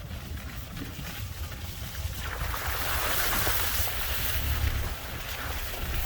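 Vehicle driving along a rough dirt track, a steady low rumble with wind buffeting the microphone; a rush of hissing noise swells for a couple of seconds in the middle.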